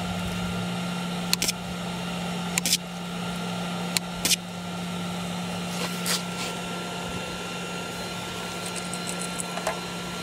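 Flux-core wire welder laying short tack welds on thin sheet steel: about six brief bursts of arc crackle, each a fraction of a second, over a steady hum. The welds are kept this short to avoid burning through the thin metal.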